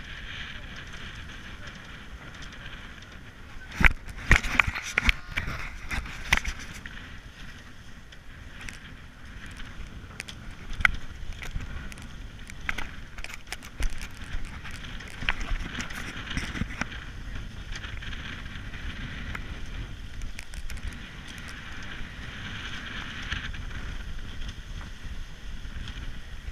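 Wind and water rushing past a racing catamaran sailing under way. A flurry of sharp clicks and knocks comes about four to six seconds in, and a few more scattered knocks follow, from lines and deck gear being worked.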